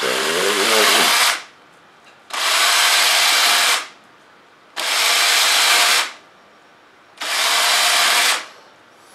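Cordless drill running in four short bursts of about a second and a half each, drilling extra vent holes around the edge of a drag-chute canister so air escapes faster.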